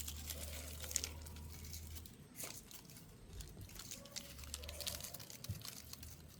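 Faint rustling and crackling of dry leaves, with scattered light crunches, as cats play in them.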